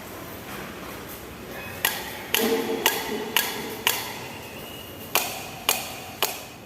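Eight sharp metal knocks, each ringing briefly, spaced about half a second apart: a run of five from about two seconds in, then three more near the end.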